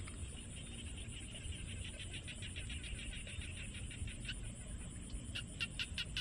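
Small paddy frogs calling in a rapid chorus of evenly pulsed calls, several a second, which grow sharper and louder near the end. A steady high-pitched drone runs underneath.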